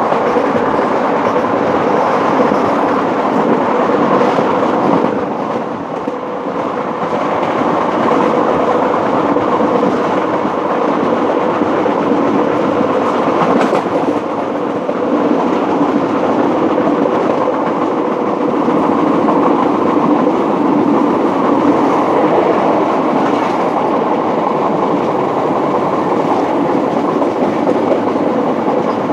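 Steady running noise of a moving passenger train heard from aboard, with wheels rumbling over the rails. It dips briefly about six seconds in.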